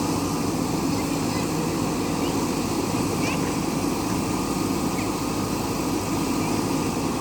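JCB backhoe loader's diesel engine running steadily under work, with a few short high chirps over it.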